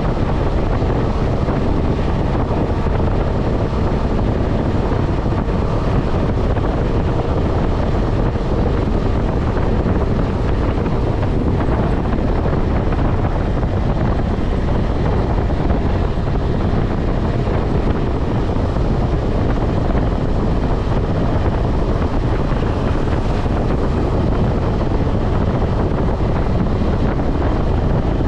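Steady wind rush over the microphone at highway speed, with a KTM 250 Adventure's single-cylinder engine running beneath it.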